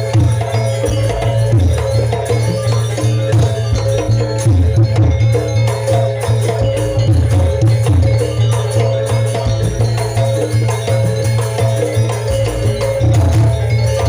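Janger gamelan music: fast hand-drum and struck percussion strokes over steady ringing tones.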